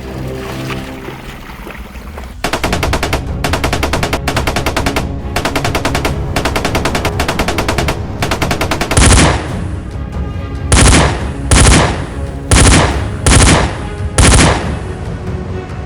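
Automatic gunfire sound effects over background music: rapid continuous fire starting about two seconds in, then six short, louder bursts in the second half.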